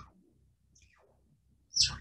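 Modular synthesizer oscillator under frequency modulation, sounding short tones that swoop quickly downward in pitch about once a second, alternating loud and faint.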